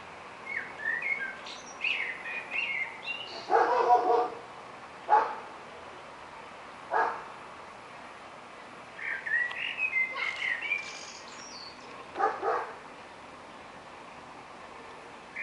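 Birds chirping and singing in two bursts, with a dog barking several times in between.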